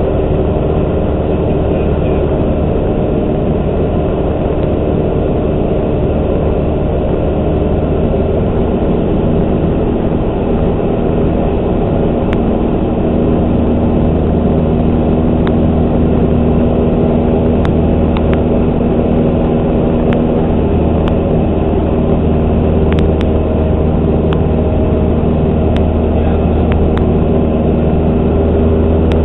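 Light single-engine propeller airplane's engine and propeller droning steadily in flight, heard from inside the cockpit, growing slightly louder past the middle.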